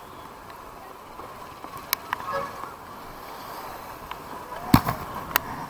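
Storm wind rushing over an action camera's microphone, with a few sharp knocks as a gloved hand handles the camera; the loudest knock comes about three-quarters of the way through.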